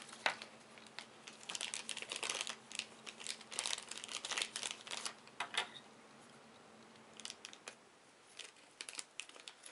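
Clear plastic bags crinkling and rustling as small miniature figures are handled, in dense bursts over the first five or six seconds. After that come a few scattered light clicks and rustles.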